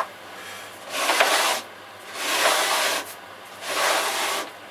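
Three short rubbing, scraping strokes across clay, each lasting just under a second, with short pauses between them.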